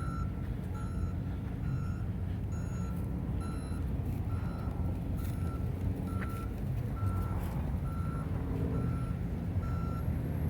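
A vehicle's reversing alarm beeping steadily at a single pitch, about two beeps a second, over a low steady engine and traffic rumble.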